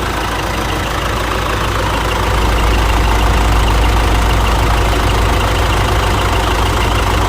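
Mitsubishi L200 Triton 3.2 four-cylinder diesel idling steadily just after start-up, growing a little louder about two seconds in. It is running smoothly with no timing-chain rattle, now that the timing chain kit and injectors have been replaced.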